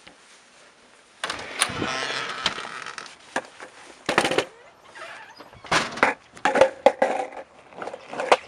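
A door opening and shutting, then a longboard clattering onto a concrete walk, and its wheels rolling and knocking over the concrete as the rider pushes off.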